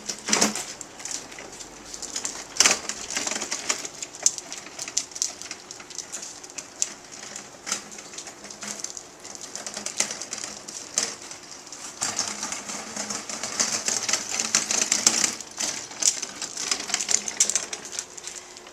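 Garden cart being wheeled along, its wheels rolling with a steady hiss and irregular clicks and rattles that grow busier about two-thirds of the way through.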